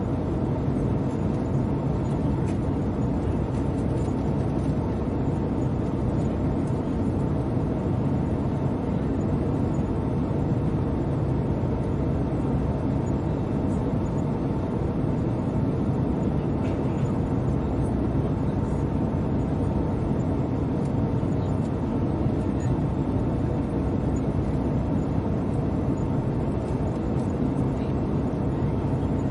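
Airplane cabin noise in flight: a steady low rumble with a faint steady tone running through it.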